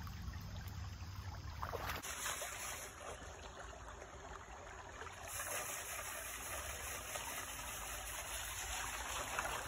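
Shallow creek water running and trickling over rocks; the sound shifts about two seconds in.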